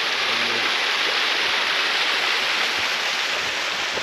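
Small waterfall and stream pouring into a gully: a steady hiss of running water.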